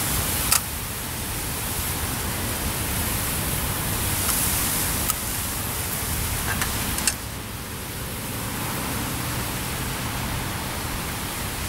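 Wind buffeting the microphone outdoors: a steady rumbling hiss, with about three sharp clicks, the first about half a second in the loudest.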